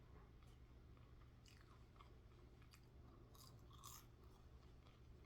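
Faint close-up chewing of food, with a few soft crunchy clicks scattered through, over a low steady hum.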